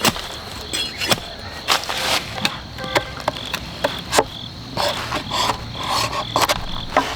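Irregular wooden knocks and clicks, as of wood or bamboo being handled and struck. Underneath runs a steady, high, repeated chirping about two to three times a second.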